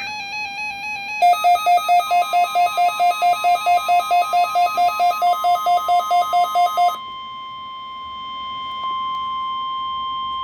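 Emergency alert tones of a NOAA Weather Radio test. A two-note warbling tone for about a second gives way to rapid electronic beeping, about five beeps a second, over a steady single tone near 1 kHz, the weather radio warning alarm tone. The beeping stops about seven seconds in, and the steady tone carries on alone.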